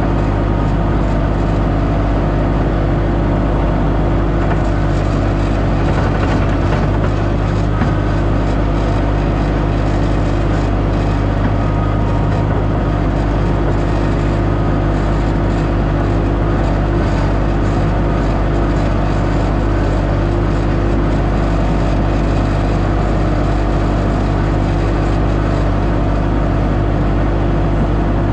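Heavy earthmoving machine's engine running steadily at a constant speed, loud and close, with no let-up.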